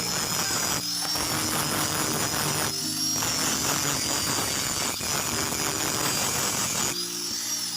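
Angle grinder grinding leaf-spring steel, its high motor whine rising and falling slightly as the load changes.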